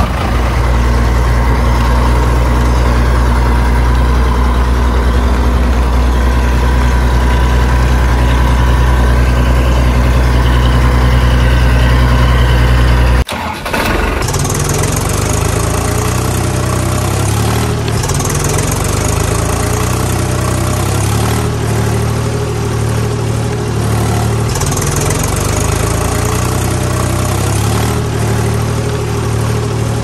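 Engine running steadily with a deep, even throb. About 13 seconds in it cuts abruptly to a second engine sound whose pitch wavers slightly up and down.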